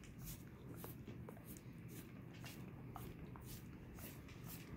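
Dog licking a person's bare heel: faint wet licking and lapping sounds, short ticks a few times a second, over a steady low hum.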